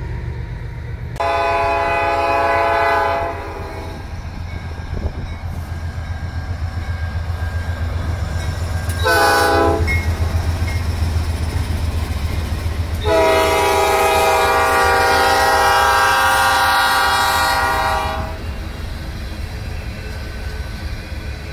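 Diesel freight locomotive's multi-chime air horn blowing three times: a blast of about two seconds near the start, a short blast around nine seconds in, and a long blast of about five seconds from thirteen seconds in. Under it the steady rumble of the passing freight train and the clatter of its covered hopper cars' wheels on the rail joints.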